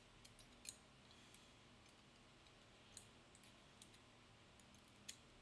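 Faint, sparse clicks of small metal lock parts, pins and springs, being handled while the padlock's cylinder is taken apart: four or five light ticks spread through an otherwise quiet stretch.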